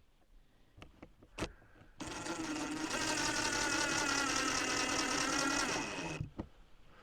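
A cordless drill-driver runs under load for about four seconds, starting about two seconds in and stopping near the end, most likely driving a screw into wood trim. Two short knocks come just before it.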